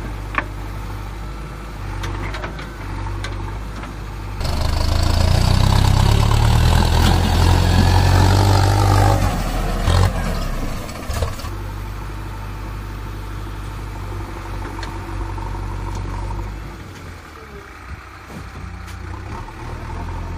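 Vehicle engine running with a steady low drone, growing much louder for about seven seconds from about four seconds in, then dropping back to a steady idle that fades lower near the end.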